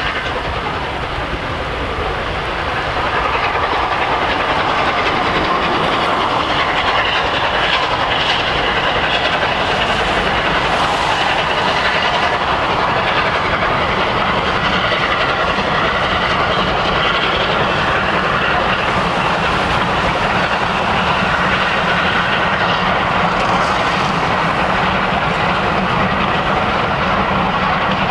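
Steam locomotive working a passenger train along the line, a continuous steady sound that grows a little louder about three seconds in.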